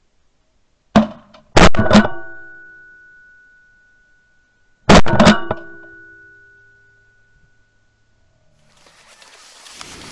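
Sharp, very loud bangs with long ringing tails, added in editing over dead silence: three in quick succession about a second in, then two more close together about five seconds in, each dying away over a few seconds. Near the end, outdoor field noise fades back in.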